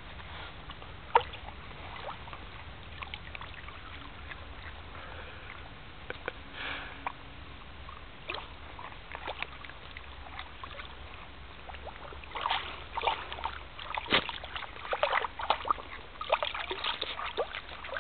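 A dog wading and splashing through shallow pond water, with scattered splashes and sloshes that come thicker and louder in the last six seconds. One sharp splash stands out about a second in.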